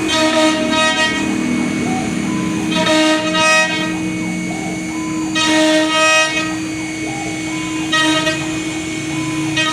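CNC wood router running with a steady whine. About every two to three seconds it swells into a louder, shriller tone, typical of the bit cutting into the wood on each pass.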